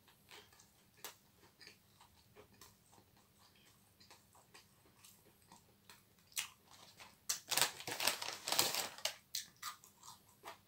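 A person chewing food close to the microphone: faint mouth clicks at first, then a few seconds of louder crunching and crackling near the end.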